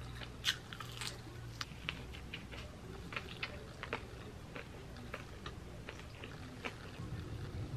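Close-up eating sounds: a person biting into and chewing waffle fries and a fried chicken sandwich, heard as many small, irregular mouth clicks.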